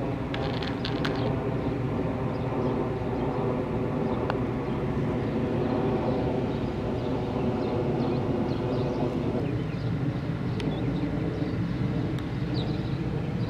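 Steady low drone of a large engine, its pitch dipping slightly about nine seconds in.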